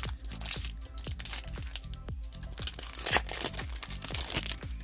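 Foil trading-card booster pack wrapper crinkling and tearing as it is worked open by hand, in several rustling spurts, over background electronic music with a steady beat.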